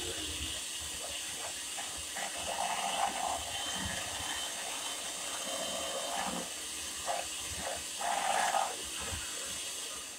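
Electric hand mixer running at a low speed with its beaters in a bowl of muffin batter, a steady whirring hiss with a couple of brief louder swells about three and eight seconds in, dying away near the end as the mixer is switched off.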